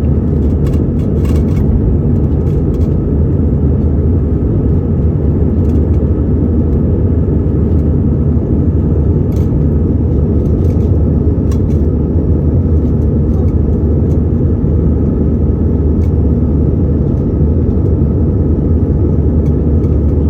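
Steady low rumble of a jet airliner's engines and airflow heard from inside the passenger cabin after takeoff.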